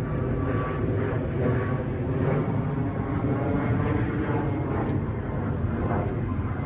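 Steady low rumble of an aircraft overhead.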